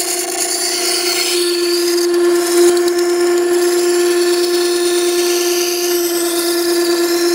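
Makita 9820 electric water stone running with a steady tone, its 120-grit wheel grinding the bevel of a plane iron held in a jig. Steel on wet stone gives a hissing scrape that swells and fades.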